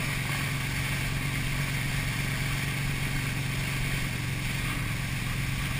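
Motorboat engine running steadily at speed while towing a tube, a constant low drone over the rushing of the churning wake.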